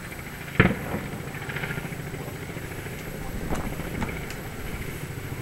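One loud firework bang about half a second in, followed by a few fainter pops a few seconds later, over a steady background hum.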